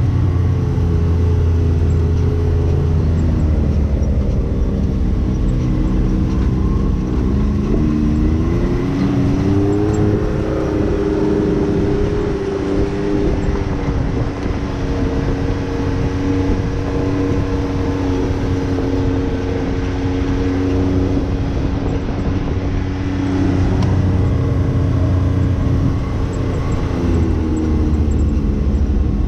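Can-Am Maverick X3 DS Turbo side-by-side's turbocharged three-cylinder engine running under way. Its pitch drops a few seconds in, climbs again around eight to ten seconds in, holds fairly steady, then drops near the end.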